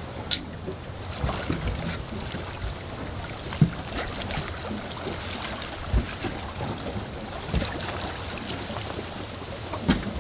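River water lapping against the side of a small boat, with wind on the microphone and a few sharp knocks, the loudest about a third of the way in.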